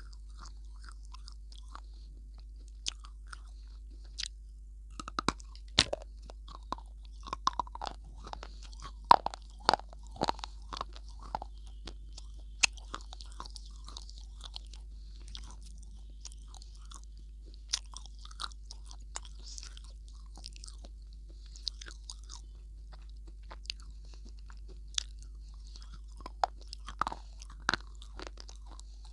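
Close-miked biting and chewing of a hard, dry block, with sharp scattered crunches that come thickest between about five and eleven seconds in and again near the end.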